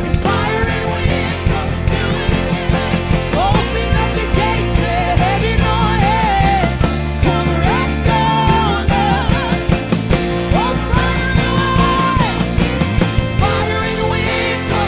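Live worship band playing a rock-style song, with sustained bass and chords under a gliding melody line that is sung without clear words or played on an instrument.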